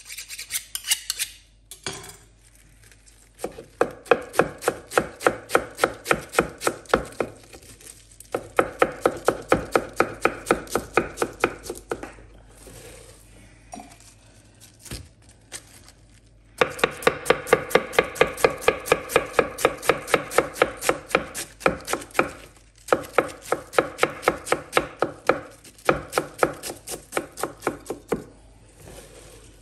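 A long kitchen knife shredding a head of cabbage on a wooden cutting board: runs of quick, even chopping strokes, several a second, broken by short pauses as the cabbage is repositioned.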